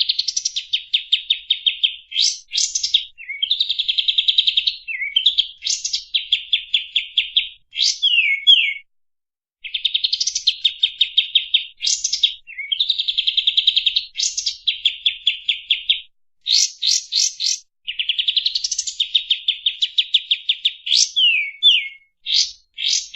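Kapas tembak bulbul singing: long, dense runs of rapid repeated notes, broken by quick downward-slurred whistles and a few brief pauses.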